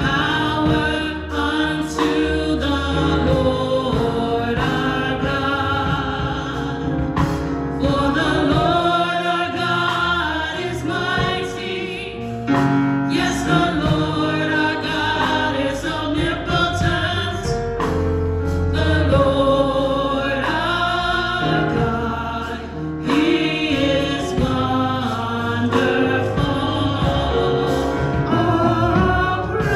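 Gospel choir singing in a church service, backed by instruments with a steady beat and sustained low notes.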